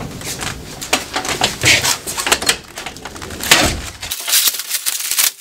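Irregular knocks, clatter and rustling as a plastic-wrapped washing machine is moved about on a sack truck.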